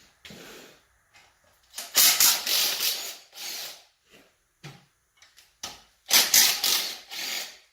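Cordless drill driver with a 13 mm socket spinning off the oil pickup tube fasteners on an LS V8, in two runs of about two seconds each with small clicks of metal between.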